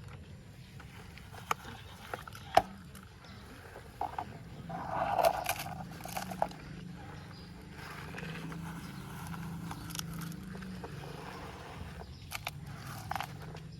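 Toy excavator digging in soil: scattered plastic clicks and knocks, with a louder scrape of dirt about five seconds in, over a steady low hum.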